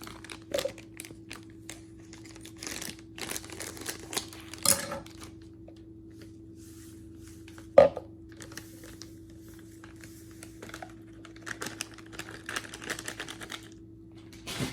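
A dog ice cream mix container being handled and opened, with light rustling, tapping and clicking throughout and a sharp knock about eight seconds in.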